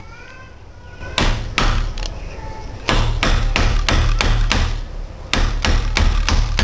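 Hammer blows on a drift, driving the inner taper roller bearing into an E-type Jaguar rear hub, stopping short of fully home to leave end float. Sharp strikes: two about a second in, then a steady run of about three a second, with a short break about five seconds in.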